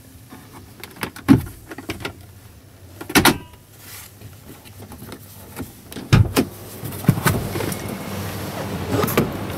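A few sharp knocks and thumps, the loudest near the start, in the middle and about two-thirds through, with smaller clicks between, over a low steady hum; the background grows busier after about seven seconds.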